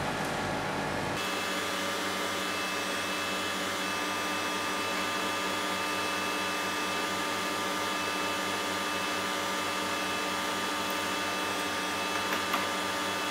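Steady whirring hum of an electric appliance motor, holding an even pitch with several fixed whining tones; its low rumble drops away about a second in.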